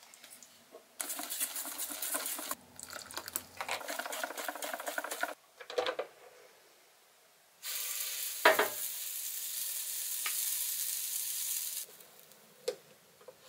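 Batter being stirred in a stainless steel bowl, then after a short pause a steady sizzle of waffle batter on the hot plates of an electric waffle maker, with a sharp knock early in the sizzle. The sizzle cuts off suddenly near the end.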